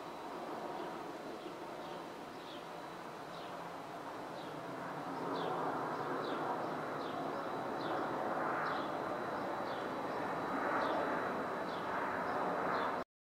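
Outdoor ambience: a steady rumble of distant traffic that grows louder about five seconds in, with a bird repeating short, falling chirps about once or twice a second. The sound cuts off suddenly near the end.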